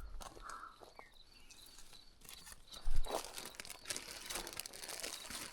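Rustling and crackling of leafy brush and twigs being pushed through and handled, with a knock about three seconds in. The rustling grows denser after that.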